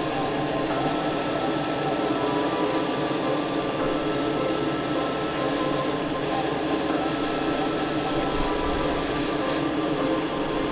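Airbrush spraying paint onto a plastic model kit: a steady hiss of air and paint that stops briefly three or four times as the trigger is let off.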